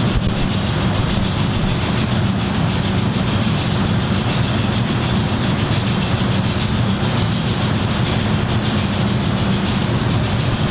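Steady mechanical noise: a low hum under an even hiss.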